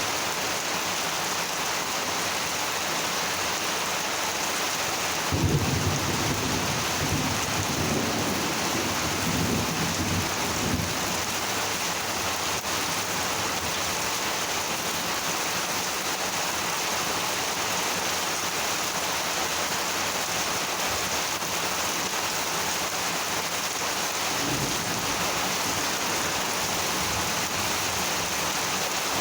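Steady rain from a monsoon thunderstorm, with a rumble of thunder that starts about five seconds in and rolls on for several seconds, and a fainter rumble later on.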